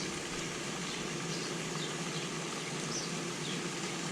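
Steady rushing of storm runoff pouring from drain pipes into a pond, with faint short, high chirps every second or so.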